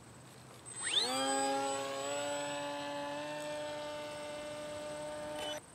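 Electric motor and propeller of a radio-controlled model plane throttled up about a second in, its whine rising quickly in pitch and then holding steady for several seconds before cutting off suddenly near the end.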